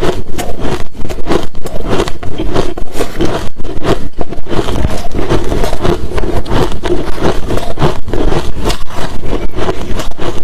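Close-miked chewing of hard crushed ice mixed with shaved-ice chunks: loud, rapid crunches at about three or four a second, without a break.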